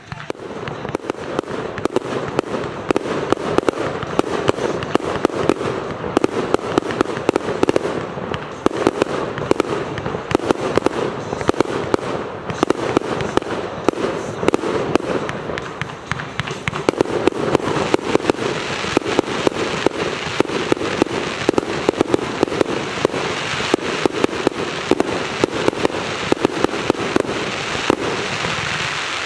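JW417-CB Show of Fireworks multi-shot firework battery firing shot after shot in rapid succession: a dense, continuous barrage of sharp bangs and pops that eases briefly about twelve and sixteen seconds in.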